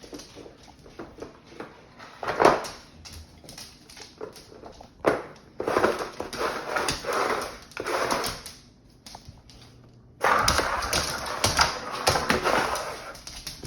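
A dog playing roughly with a cat toy: scuffling, tapping and rustling in uneven bursts, with many short clicks.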